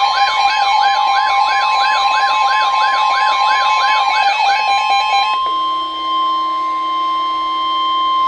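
Weather alert radios sounding a severe thunderstorm warning: a warbling, siren-like alarm sweeping about three times a second over a steady high tone. About four and a half seconds in the warble stops and the long steady NOAA Weather Radio warning tone carries on alone, joined by a lower steady tone.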